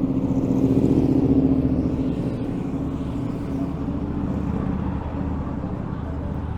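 Motorcycle engines running as a trike and a few other motorbikes ride past, loudest about a second in and then slowly fading.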